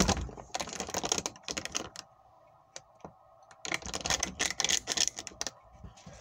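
A plastic water bottle crinkling and rubbing right at the microphone, making crackly clicks in two bouts, the first over the opening two seconds and the second from about four to five and a half seconds in, over a steady hum.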